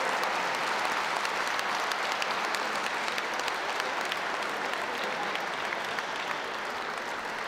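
Audience applauding, a steady patter of many hands clapping that tapers slightly.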